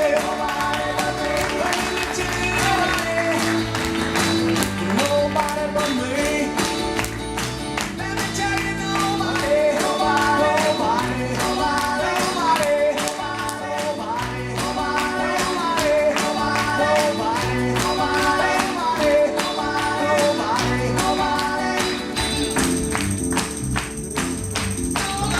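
Upbeat rock-and-roll song with a steady beat and a bending melody line.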